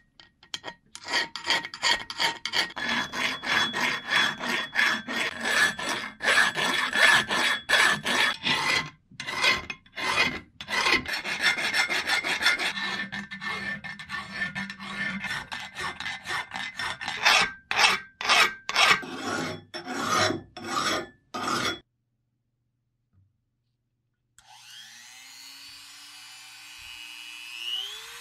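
Hand file rasping in quick back-and-forth strokes on a rusty metal axe head, filing out the socket and slots. The filing stops, and a couple of seconds later an electric rotary tool starts up and runs, its whine rising in pitch near the end.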